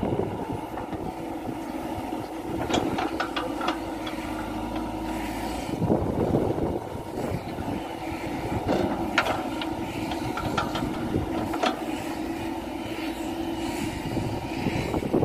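Caterpillar 416F2 backhoe loader's diesel engine running steadily as the backhoe arm digs, with scattered sharp knocks of the steel bucket against stony dirt.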